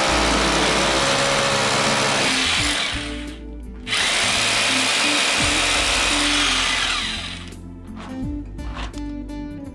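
Corded rotary hammer drilling down into a concrete floor for an anchor stud, in two runs with a short pause between them about three seconds in; the drilling stops about seven seconds in. Background music plays underneath.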